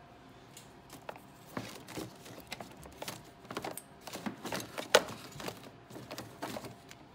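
Handling noise: irregular light clicks and taps, the sharpest about five seconds in.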